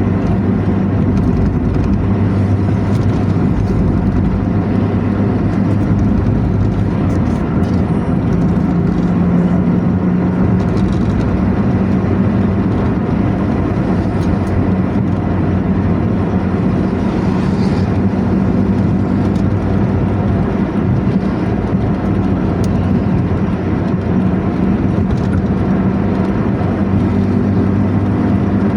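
An intercity bus's diesel engine running steadily under way, with the deep growling exhaust called 'ngorok' (snoring), over road noise.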